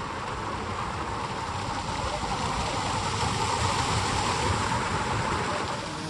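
Water of a small waterfall rushing down over rocks, a steady rush that grows a little louder over the first few seconds.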